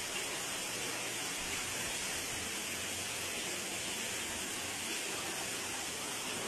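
Steady rush of water pouring from a ventilation opening and splashing onto a flooded floor, the building overwhelmed by a downpour.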